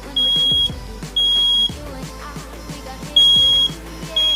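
First Alert SC9120B smoke and carbon monoxide alarm's piezo horn sounding on test in the three-beep smoke pattern. Loud, high-pitched half-second beeps about a second apart: two beeps, a pause of about a second and a half, then two more.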